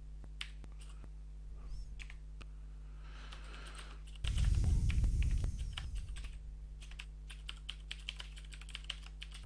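Computer keyboard keys clicking in irregular bursts of typing, coming faster in the second half. About four seconds in there is a louder rushing noise lasting under two seconds, over a steady low hum.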